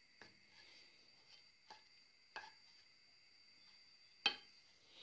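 A spatula knocking and tapping against a saucepan while stirring onions in broth: a few sharp, scattered knocks, the loudest about four seconds in.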